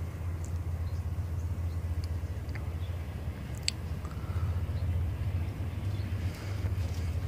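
Steady low outdoor rumble with a single faint click about three and a half seconds in.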